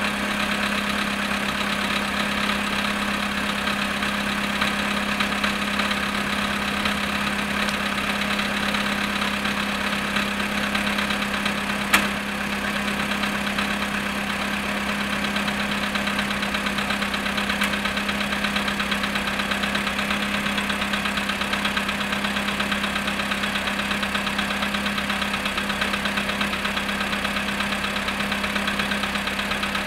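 Volkswagen Polo Sedan engine idling steadily with a knock, cold after standing 14 hours at −7.5 °C. A single sharp click about 12 seconds in.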